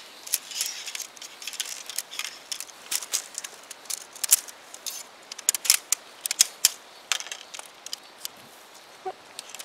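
Featherstone UL Granite tent's shock-corded hub pole system being stretched out, its pole sections snapping into place in a run of irregular light clicks and taps.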